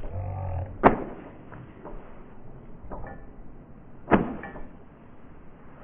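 Two gloved-fist thumps on a person's jacket-covered back, about three seconds apart, with a few lighter knocks in between.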